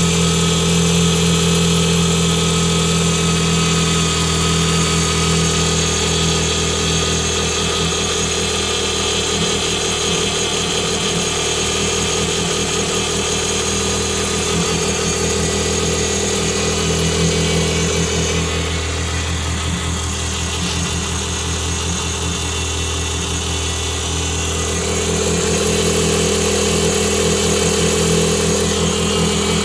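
Renault Clio 182's 2.0-litre four-cylinder engine idling steadily, with a steady high-pitched tone over it: a noise the owner suspects may be a bad water pump.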